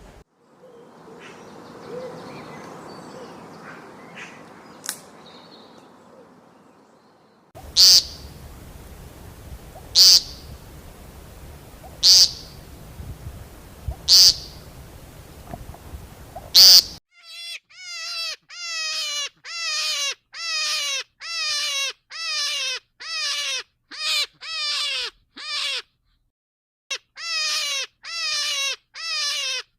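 A series of animal calls from a farm-animal recording. First come five loud, sharp, high calls about two seconds apart. From about halfway in, a rapid, even run of short calls follows, each falling in pitch, with a brief pause near the end.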